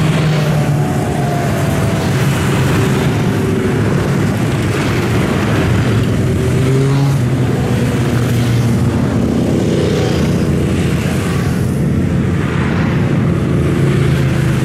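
A steady stream of motorcycles and other road traffic passing close by, one after another. Several engine notes overlap, each rising and falling as it goes past.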